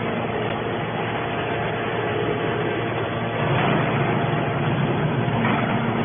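Hydraulic triple-action metal scrap baler running, a steady mechanical drone from its hydraulic power unit.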